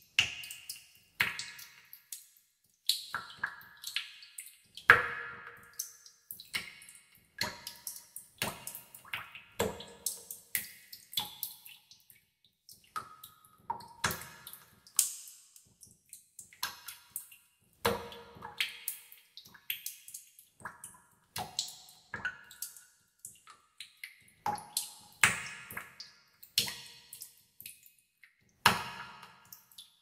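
Water drops falling into water in a cave, two or three drops a second at uneven intervals. Each drop makes a short plink with its own pitch that rings on with echo.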